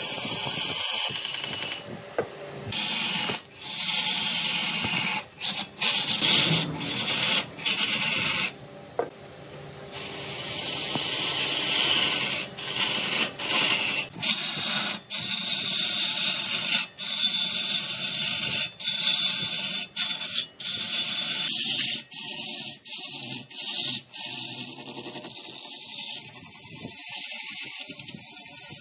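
Woodturning on a lathe: spinning wood rasping and rubbing against a tool, a steady hiss broken by many abrupt cuts.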